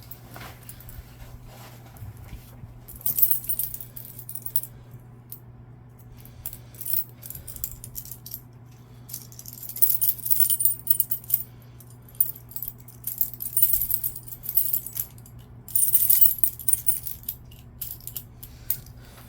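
Small metal tools clinking and rattling against each other as they are handled and sorted, in three bursts of a second or two with single clicks between, over a steady low hum.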